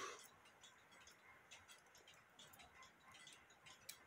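Near silence with faint ticking and light clicks from a Hubert Herr cuckoo clock movement being handled and run out of its case.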